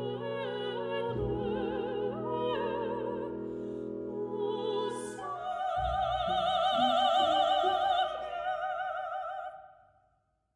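Operatic singing with orchestral accompaniment as background music. It closes on a long held high note with wide vibrato that fades out near the end.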